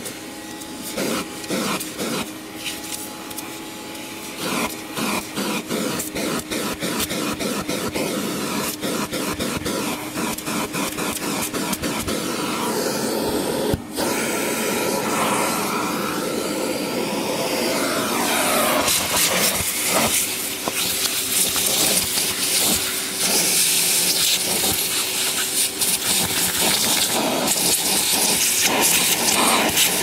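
Vacuum cleaner running with its crevice tool sucking dust out of a vacuum's filters: a steady motor whine over the rush of air, with a rapid crackle of clicks in the first half. The sound dips briefly about halfway, then the airflow grows louder and hissier.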